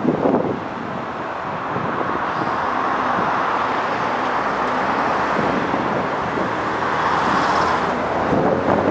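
Steady road traffic noise: a continuous rush of passing vehicles.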